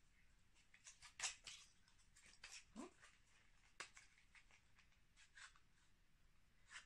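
Faint rustling and scattered light clicks of a small cardboard cosmetics box and its wrapping being handled and opened by hand, with one brief squeak about three seconds in.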